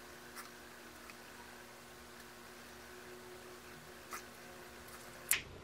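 Quiet room tone: a faint steady hum and hiss, with a few soft clicks, the sharpest near the end.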